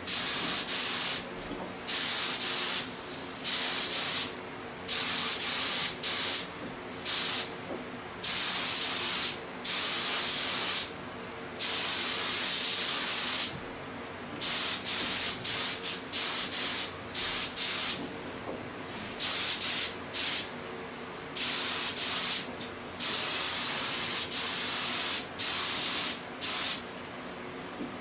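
Gravity-feed air spray gun hissing in many short bursts, each about half a second to two seconds long, as the trigger is pulled and released while spraying paint.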